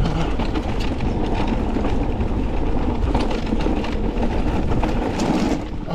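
Forme electric mountain bike ridden down a rough trail: a steady rumble of tyres and wind, with the bike rattling in many small knocks and clicks.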